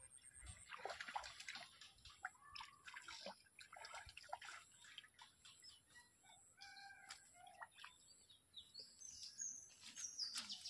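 Faint bird chirps and calls, short high notes coming irregularly, with a longer call of a few steady notes about seven seconds in.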